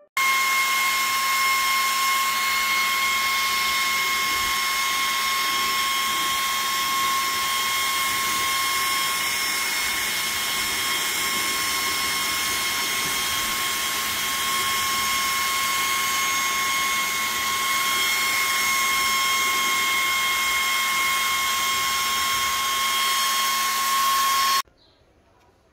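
Homemade high-speed fan built from small computer cooling fans running flat out: a steady rush of air with a high, even whine. It starts suddenly and cuts off suddenly about a second before the end.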